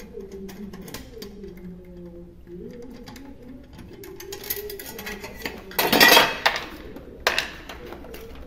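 Small metal clicks and clinks of a hand tool working the bolts on a hybrid car's inverter-converter cover, with a louder rush of rattling noise about six seconds in and a sharp knock just after seven.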